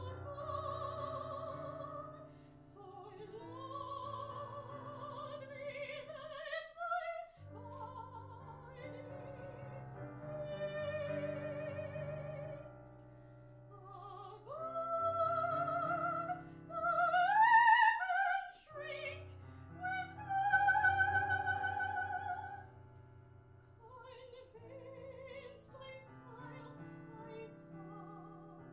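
Soprano singing a classical art song with vibrato over piano accompaniment. The voice climbs in a rising phrase to its loudest, highest notes a little past halfway, then the song settles quieter near the end.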